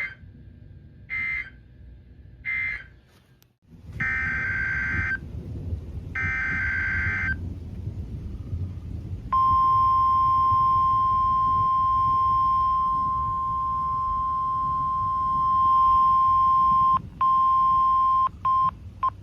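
NOAA Weather Radio station KJY62 sending Emergency Alert System (SAME) data bursts: three short bursts, then, over a low hum, two longer header bursts. These are followed by the steady 1050 Hz warning alarm tone for about eight seconds. Near the end the tone cuts out several times, the signal dropping on and off, as this transmitter is known to do.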